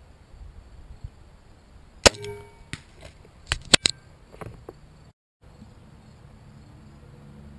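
Compound crossbow firing a bolt: one loud, sharp crack of the string release about two seconds in, with a short ring, followed by a few lighter clicks and knocks.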